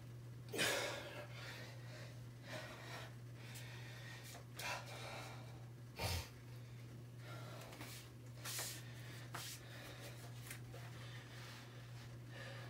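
A man breathing hard to catch his breath after a set of push-ups: short, sharp exhales and gasps every second or two. A steady low hum runs underneath.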